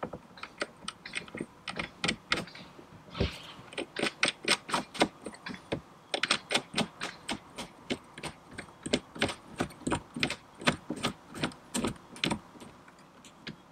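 A plastic-capped bolt being screwed by hand into a threaded wooden insert: a long run of irregular sharp clicks and taps, a few a second, as the plastic cap turns and knocks against the wood.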